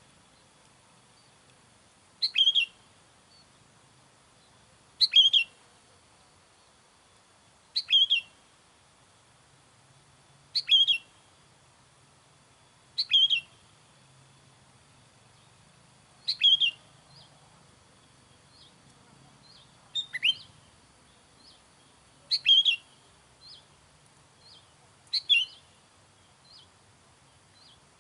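Sooty-headed bulbul (kutilang) calling: nine short, bright whistled phrases repeated evenly about every three seconds, with fainter short high notes in between during the second half.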